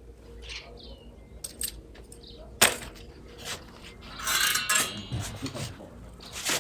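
Metal hand tools (an adjustable spanner, a multi-tool and Allen keys) clinking and rattling as they are handled. There is a sharp clack about two and a half seconds in and a longer clatter a little past the middle.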